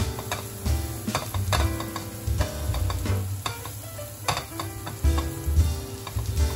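Pork, zucchini and mushrooms sizzling in a frying pan while a spatula stirs and turns them, with repeated scrapes and knocks of the spatula against the pan.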